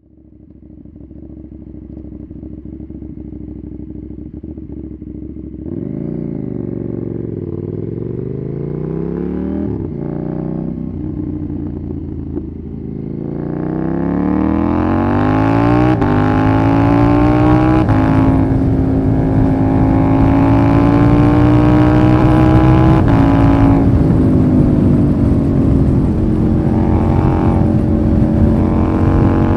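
KTM Duke parallel-twin with an Austin Racing RS22 de-cat underseat exhaust, ridden: the engine's pitch rises and falls at first, then climbs steeply about halfway through and holds high and steady, with short drops in revs near the end.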